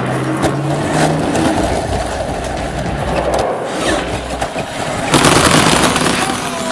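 Battery-powered RC Hummer truck driving off road: its electric motor whining in rising pitch and its tyres scrabbling over dirt, with a louder, harsher rush of tyre and ground noise about five seconds in.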